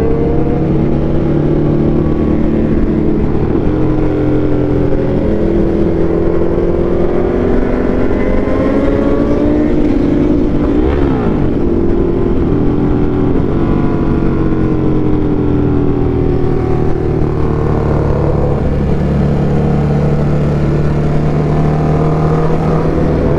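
Ducati Hypermotard motorcycle engine under way, its pitch repeatedly climbing and dropping as the rider accelerates and eases off between shifts. About halfway through, a second engine's pitch rises and falls quickly.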